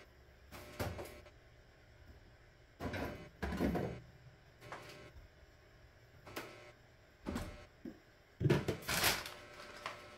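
Groceries and plastic bags being handled on a table: short, irregular rustles and light knocks, the loudest cluster about three quarters of the way in.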